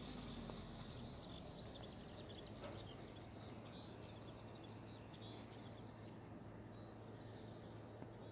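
Faint outdoor ambience: small birds chirping in quick runs of short high notes over a steady low hum.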